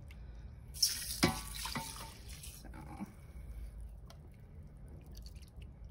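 Chicken stock poured from a measuring cup into an Instant Pot's stainless steel inner pot over uncooked rice, a splashing pour of about two seconds, with a couple of sharp knocks near its start.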